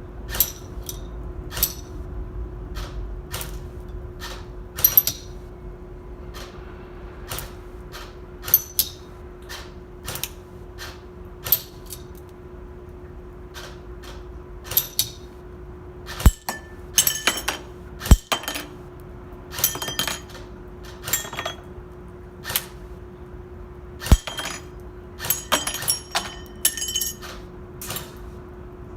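Airsoft gun fired in single shots, the BBs striking a target with sharp clinks that ring briefly, at an uneven pace of roughly one every second or two and closer together in the second half. A steady low hum runs underneath.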